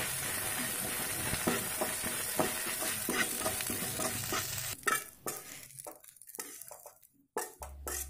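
Herb leaves sizzling as they wilt in an aluminium kadai, stirred with a spoon that scrapes the pan. The sizzle and stirring stop about five seconds in, leaving a few light knocks and a short near-silent gap.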